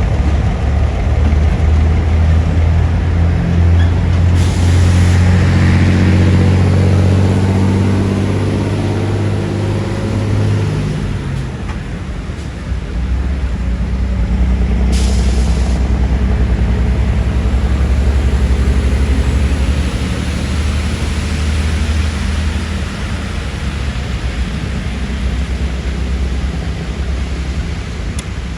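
Two EMD G22UB diesel-electric locomotives running in multiple, their 12-cylinder two-stroke engines working as they move. The engine note is strong, eases for a moment about halfway through, then holds steady again. Two short hisses of air come about 4 and 15 seconds in.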